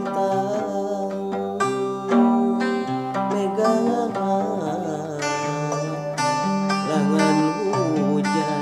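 Kacapi (Sundanese zither) plucked in a flowing melody, its strings ringing on after each pluck, with a wavering, ornamented melody line sustained above it.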